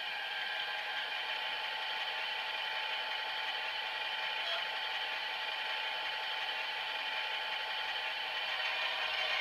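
ESU LokSound decoder in an H0 model of an FS D445 diesel locomotive, playing its diesel engine sound steadily through the model's small speaker: thin and tinny, with almost no bass.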